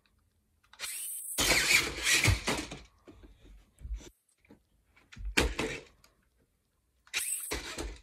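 Toy RC Grave Digger monster truck's electric drive motors running in three short bursts as it is driven over carpet, with a few knocks between them.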